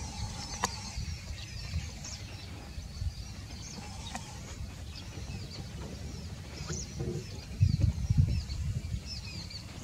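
Small birds calling in the trees: many short, high chirps scattered throughout, over a steady low rumble, with a few louder low bumps about eight seconds in.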